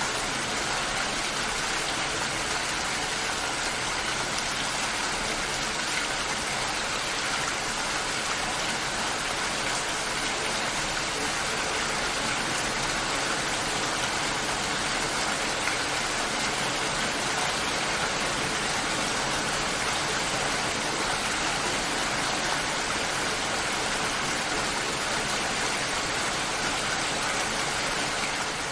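Steady rainfall: an even, unbroken hiss of many fine drops pattering.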